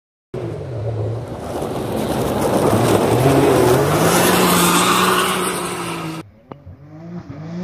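Rally UTV engine at high revs as the car slides through a loose dirt corner, its pitch climbing and holding over the hiss of spraying dirt and gravel. The sound cuts off abruptly about six seconds in, followed by a fainter UTV engine rising in pitch as it approaches.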